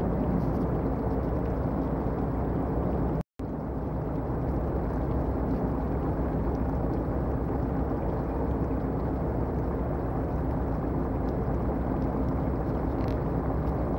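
Steady low rumble of the destroyer Shimakaze's engines as she gets under way out of the harbour. The sound cuts out for a split second about three seconds in.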